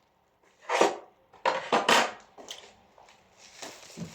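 Handling noises of a door closer and its packaging: four short scrapes and knocks in the first two seconds, then a quiet rustle building near the end.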